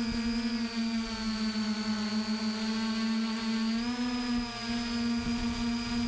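A small motor or propeller hum, steady and even-pitched, rising slightly in pitch about four seconds in and settling back.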